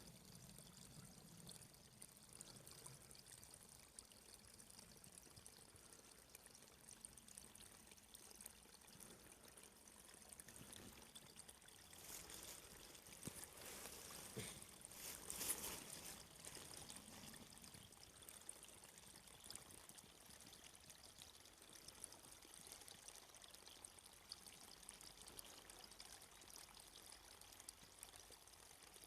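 Faint running water, a little louder for a few seconds about halfway through.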